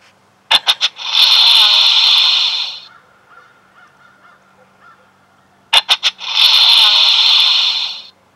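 White-tailed deer snort-wheeze, given twice: three short nasal puffs followed by a long hissing wheeze of nearly two seconds, loud and close. It is the aggressive challenge call of a buck.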